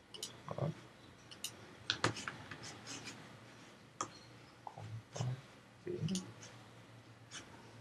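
Irregular clicks and taps of a computer mouse and keyboard, about a dozen spread over several seconds, a few of them duller knocks.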